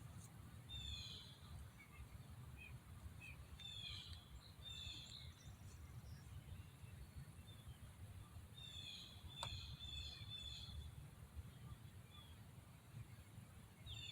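Faint outdoor ambience: small birds chirping in short scattered bursts over a steady low rumble, with a single sharp click about nine seconds in.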